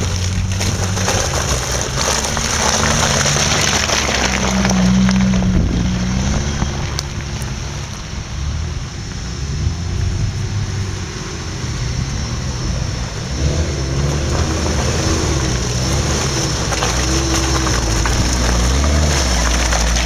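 Engines of off-road 4x4s revving up and down as they labour through deep mud, the pitch rising and falling with the throttle. Near the end, an Opel Frontera Sport passes close.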